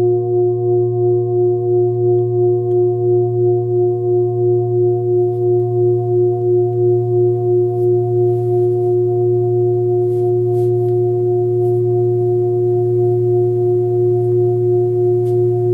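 A 28 cm hand-forged Sun Moon singing bowl, with its low note around 117 Hz, sounds a steady hum with several higher overtones. Its level wobbles about twice a second and does not fade.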